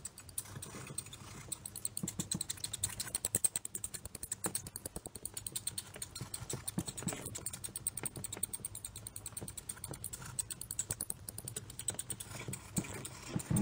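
Sound effect of mice scurrying: rapid, uneven light clicking and scratching of small claws, many ticks a second.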